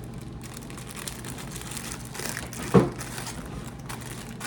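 Plastic cake-mix bag crinkling as it is opened and handled, with scattered crackles and one brief louder sound about three seconds in.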